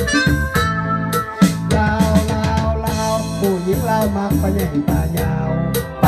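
Music from a Korg Pa-series arranger keyboard: held melody notes over a programmed drum beat. A man's singing voice seems to come in about halfway through.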